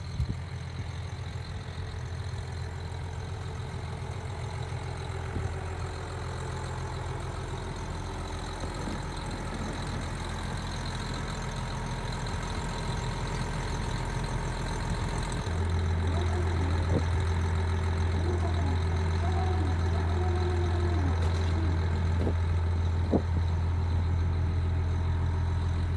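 Large diesel vehicle engine idling with a steady low hum. About fifteen seconds in the hum shifts and grows louder.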